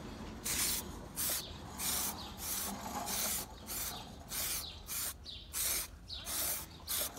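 Hand sanding: a rhythmic series of scraping strokes of an abrasive across a part, about eleven strokes at a steady pace of roughly one and a half a second.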